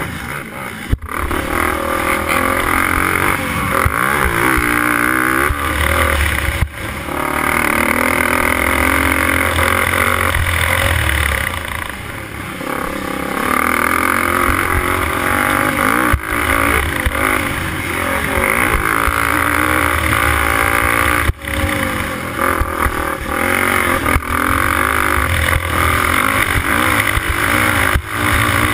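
Racing quad's engine at full race pace, revving up and falling back again and again as the throttle is worked, with a few brief sudden dips where the throttle is chopped.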